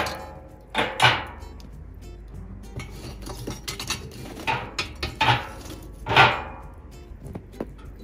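Metal clanking: about half a dozen sharp metal-on-metal knocks, each with a short ring, as barbecue smoker hardware and cookware are handled. The loudest come right at the start, about a second in and about six seconds in.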